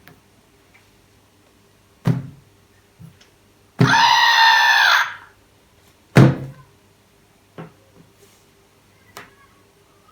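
A red plush monster toy thuds heavily twice, about four seconds apart, with a few lighter knocks around them. Between the thuds, the toy's speaker plays a loud, cartoonish voice sound for about a second.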